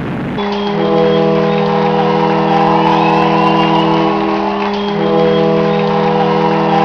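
Ship's horn sounding a loud, steady chord of several tones, with part of the chord dropping out briefly about four and a half seconds in before sounding again.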